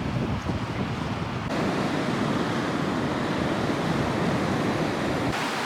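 Strong wind rushing and buffeting the microphone, a steady roar of noise that shifts abruptly about one and a half seconds in and again near the end.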